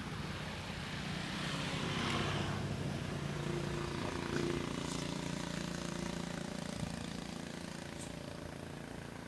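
A motor vehicle's engine droning as it passes, swelling to its loudest about two seconds in and then slowly fading.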